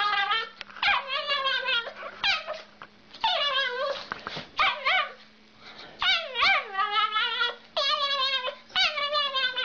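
Small dog "singing": a string of high, wavering whines and short howls, about eight calls each lasting under a second to a second and a half, many of them sliding down in pitch, with brief pauses between.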